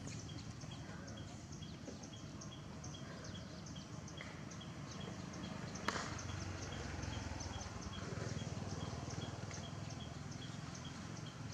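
Outdoor background noise with a small high chirp repeated evenly, about two or three times a second, over a low steady rumble. There is one sharp click about six seconds in.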